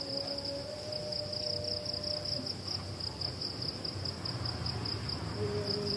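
Crickets trilling: a steady, high, fast-pulsing chirr that keeps going without a break.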